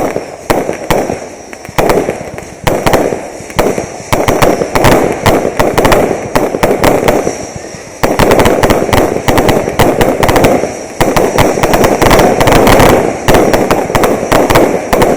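Fireworks display: a dense run of rapid crackling and sharp bangs from bursting shells, with sudden loud bursts every few seconds. It is at its loudest and most continuous over the second half.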